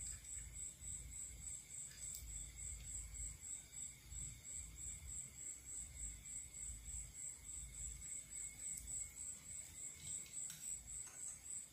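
High-pitched insect chirping, a thin tone pulsing evenly about four times a second, over a faint low rumble.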